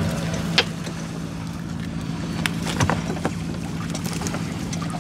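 A small boat engine idling with a steady low hum, and a few sharp knocks and clicks from handling gear on the boat, the clearest about half a second in and then a cluster near the middle.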